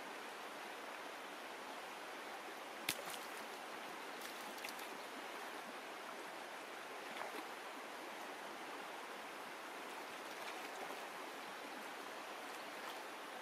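Shallow stream running over stones, a steady rushing of water. One sharp click about three seconds in, then a few fainter ticks and small splashes, the last near the end as a hand goes into the water.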